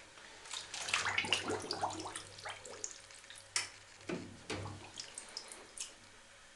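Bathwater sloshing and splashing in irregular spurts as a hand lowers a submersible aquarium pump and its nozzle tube into a bathtub; busiest in the first few seconds, thinning out toward the end.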